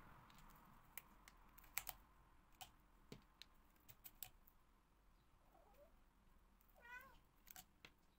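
Faint scattered clicks and taps as rubber bands are snapped around silicone moulds. A cat gives a short meow that rises and falls about seven seconds in, after a weaker one just before.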